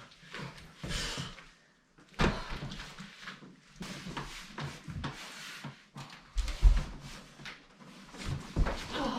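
Irregular knocks, bumps and scrapes of a large flat-screen TV and its wall-mount hanger brackets being handled and lifted onto a metal wall mount, with one heavy thump about seven seconds in.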